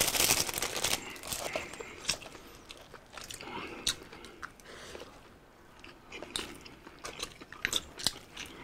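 A thin plastic bag crinkling for about the first second as shredded cabbage is shaken out of it, then close-miked eating sounds: bites, chewing and small scattered crunches.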